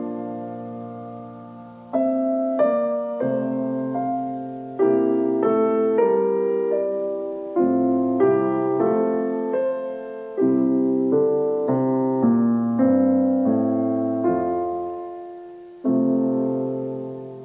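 Slow solo piano music: chords struck and left to ring and fade, a new one every second or so.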